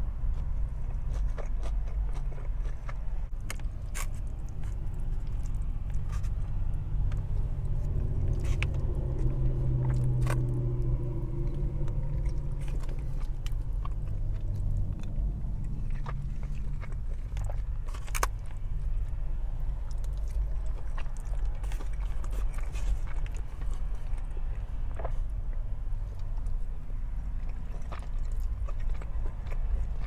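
Close-miked chewing and biting of takeout chicken and fried rice, with wet mouth sounds and scattered sharp clicks. A steady low rumble runs underneath.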